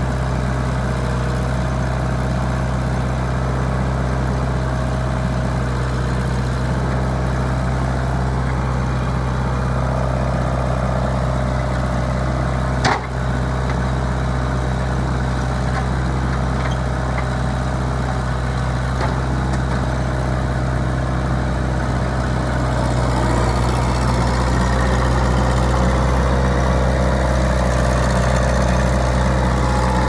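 Diesel engine of a New Holland skid steer running steadily as the machine drives and turns. The sound grows louder about two-thirds of the way through, and there is one sharp knock near the middle.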